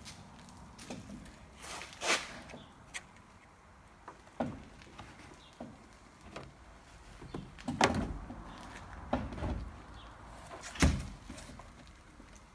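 Irregular clunks and knocks of metal against metal as a Nissan Navara NP300's rear bumper and its bolts are handled and fitted. The loudest knocks come about two, eight and eleven seconds in.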